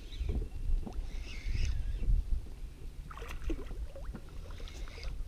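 Water sloshing and lapping against a small inflatable PVC boat, with a steady low rumble and scattered light knocks.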